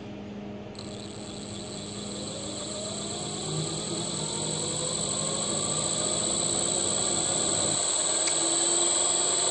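Turnigy Aerodrive SK3 brushless outrunner motor on a mini lathe spinning up as its speed is turned up. A steady high whine starts about a second in, while the motor's hum climbs slowly in pitch and grows louder.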